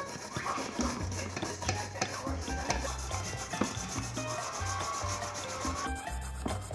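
Carrot being shredded on a grater, quick repeated rasping strokes.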